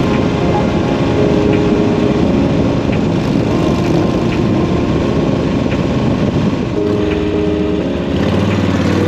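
Harley-Davidson chopper's V-twin engine running steadily under way on a road ride.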